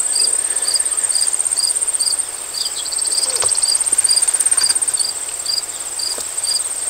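Insects chirping in the grass: a steady, high, pulsing trill, with a second insect chirping in an even rhythm about two or three times a second.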